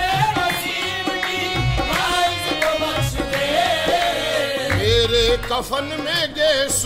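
Qawwali music: a gliding, ornamented vocal melody over held accompanying tones, with tabla drumming beneath.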